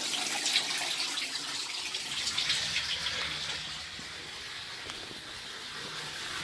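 Bathtub faucet running hard, water gushing steadily into the tub, easing off slightly partway through before picking up again.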